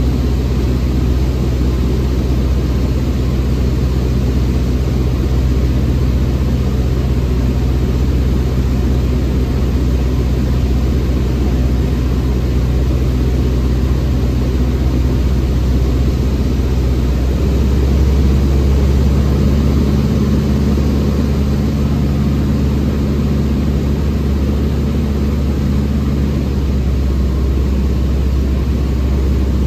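Light aircraft's engine and propeller droning steadily inside the cockpit on final approach. The tone of the drone shifts slightly a little past halfway through.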